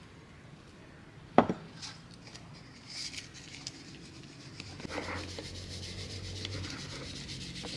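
Bowls handled on a wooden table while flour is tipped from one into the other: one sharp knock about a second and a half in, then lighter clinks and rubbing.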